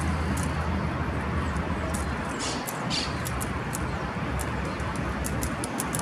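Outdoor ambience: a steady low rumble of distant city traffic, with many short, very high-pitched ticks scattered throughout and two brief hissy bursts around the middle.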